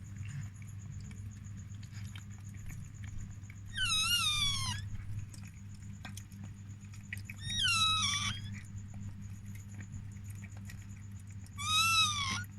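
A newborn chihuahua puppy crying: three high-pitched squealing cries about four seconds apart, each lasting about a second. A steady low hum runs underneath.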